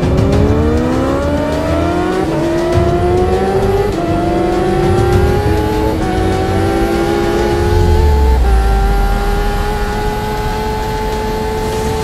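Kawasaki Ninja H2R's supercharged 998 cc inline-four accelerating flat out, heard from on board. The revs climb through four quick upshifts about two seconds apart, each gear rising more slowly than the last.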